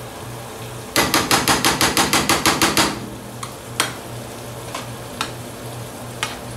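A metal utensil clicking against a stainless steel baking pan while margarine is spread over hot banana bread: a fast run of taps, about eight or nine a second, for about two seconds, then a few single clicks.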